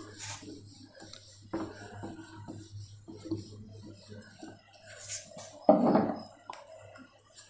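Whiteboard duster rubbing and wiping across a whiteboard in irregular strokes, over a steady low hum. A louder knock comes about six seconds in.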